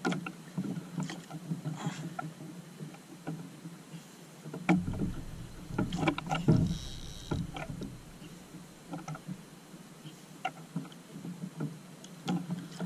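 Small outrigger boat on the water: water lapping against the hull with irregular knocks and clicks from the boat and the fishing rod and reel while a hooked fish is being reeled in. A louder run of knocks comes about five to seven seconds in.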